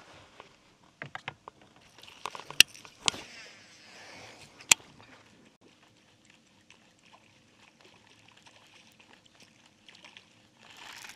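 Fishing rod and reel being handled: a few sharp clicks and rustling in the first five seconds, then much quieter with a faint steady hum.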